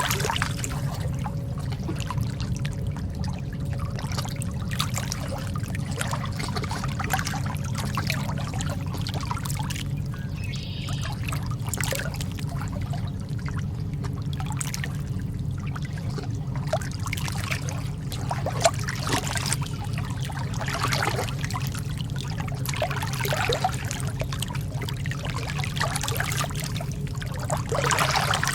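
Calm sea water lapping and trickling, with small splashes every few seconds over a steady low rumble.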